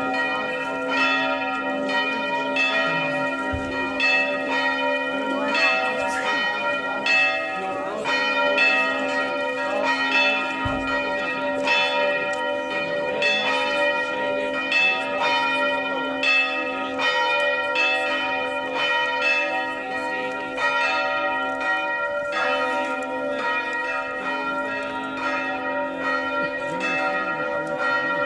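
Church bells ringing on and on in quick, even strikes, about two a second, each strike ringing on into the next.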